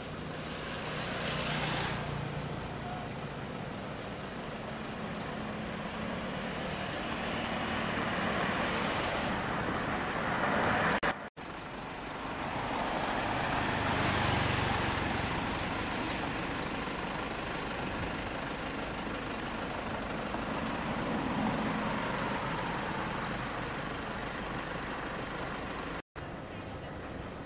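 Road traffic: cars, pickup trucks and motorbikes passing close by, each swelling up and fading away over a steady traffic hum. The sound cuts out abruptly twice.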